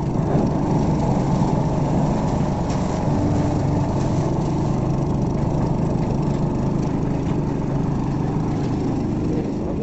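Portable drum concrete mixer's engine running steadily while the drum is tipped to pour out wet concrete.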